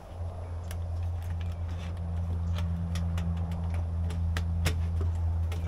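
Scattered small metallic clicks and taps as fittings are worked by hand on the base of a stainless-steel chicken plucker, with a sharper knock near the end. A steady low hum runs underneath.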